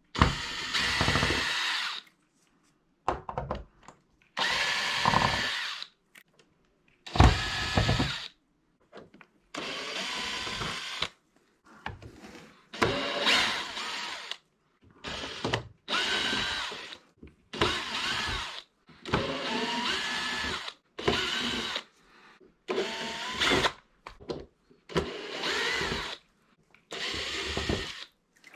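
Cordless drill-driver backing screws out of a TV's plastic rear cover, one screw after another. It runs in a string of short bursts of a second or two each, with brief pauses between them, and the motor's whine rises as it spins up on each screw.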